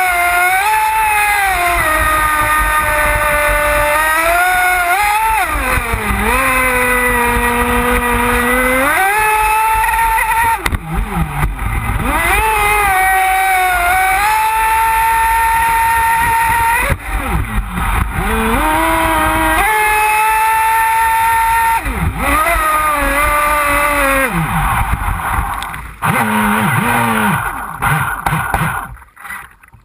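Pro Boat Voracity electric RC speedboat running flat out, its motor giving a high whine over the hiss of spray. The pitch drops and climbs again several times as the throttle is eased and reapplied. Near the end the motor winds down and the sound fades as the boat slows.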